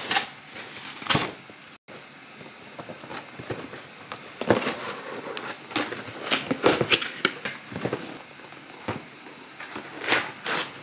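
A cardboard box being handled and opened: irregular scrapes, taps and rustles of the cardboard as its flap is pulled open.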